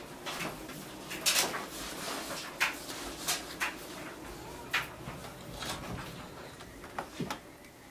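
Scattered knocks, clicks and rustles from a handheld camera being moved about and handled.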